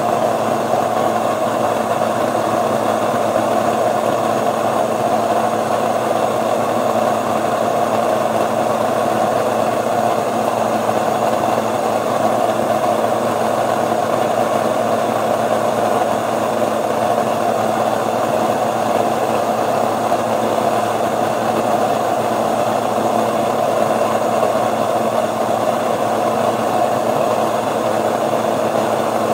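Electric countertop grain mill, a Mockmill, running steadily as it grinds wheat into flour, with a stand mixer kneading dough underneath. A loud, even motor drone that does not change.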